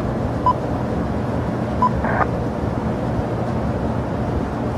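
Steady low rumble of aircraft engines at an airport, with two short beeps about half a second and two seconds in, and a brief crackle of radio just after the second beep.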